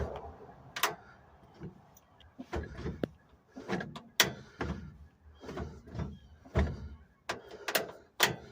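A string of irregular clunks and knocks from the cab and door of a 1953 Chevy 3600 pickup, about a dozen in all. No starter cranking is heard: the truck has a no-crank fault.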